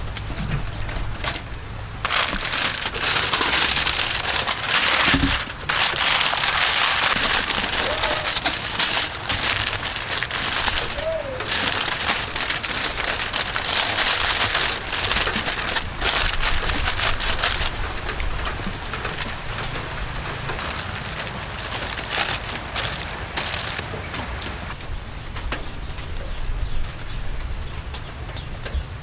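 Aluminium foil crinkling and crackling as hands fold and crimp it shut into a packet over a tray, in loud bursts with short gaps, then a softer, steady crackle in the second half.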